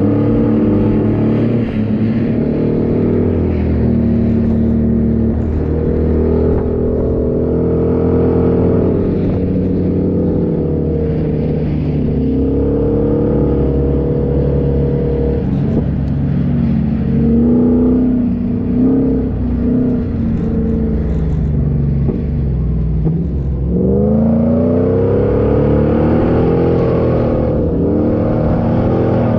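A 4x4's engine driving off-road, revving up and easing off again and again, its pitch rising and falling, with a sharp climb in revs about 24 seconds in.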